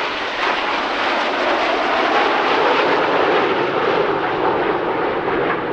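Aermacchi MB-339 jet trainers' Rolls-Royce Viper turbojets, a loud jet roar that swells up in the first moment and then holds steady, its pitch sinking slowly.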